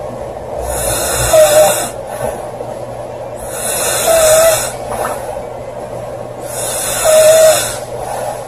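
A woman snoring loudly and rhythmically: three snores about three seconds apart, each with a short pitched squeak near its peak, with quieter breathing between.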